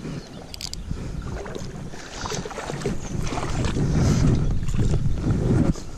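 Wind rumbling on the camera microphone, growing louder from about two seconds in, with a few short handling clicks near the start.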